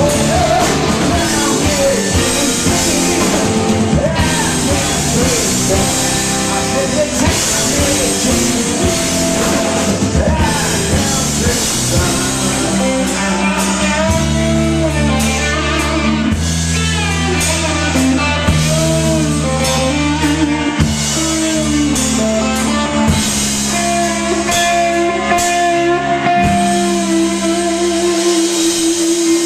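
A live rock band playing with a lead singer, guitars, bass, drums and keyboards, recorded on a pocket camcorder close to the stage. Over the last couple of seconds a single long note is held.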